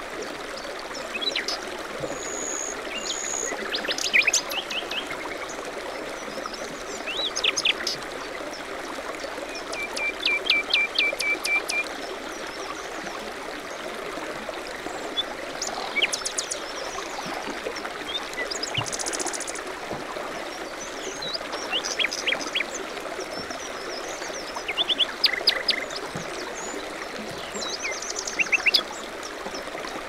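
Steady flow of a small creek trickling over rocks, with several birds chirping and calling over it: high whistles and short trills throughout, and a run of quick repeated notes about ten seconds in.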